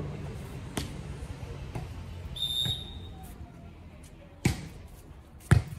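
Volleyball match play: a short high whistle blast, then two sharp, loud hits on the ball about a second apart.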